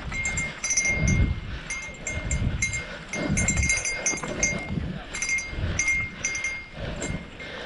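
A small bell jingling rapidly and irregularly as a bike is ridden over a rough, rocky trail, with a low thumping, wind-like rumble underneath.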